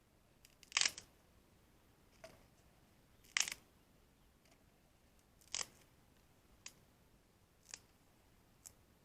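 A series of short, sharp snaps at irregular intervals: three louder ones a couple of seconds apart, then four fainter ones over a quiet background.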